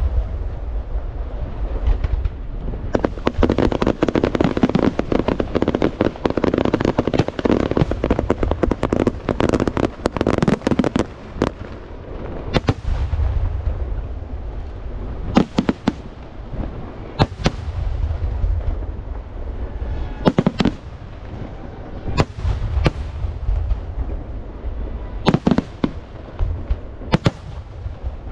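Aerial firework shells bursting in a fireworks display over a continuous low rumble. A dense run of rapid bangs lasts from about 3 s to 11 s, then single sharp reports come every second or two.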